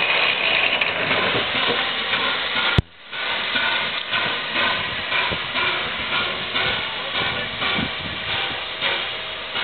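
Steam hissing from the three-cylinder LNER Peppercorn A1 Pacific locomotive No. 60163 Tornado as it moves slowly. There is a sharp click and a brief dip in level about three seconds in, after which the hissing carries on with a faint regular pulse.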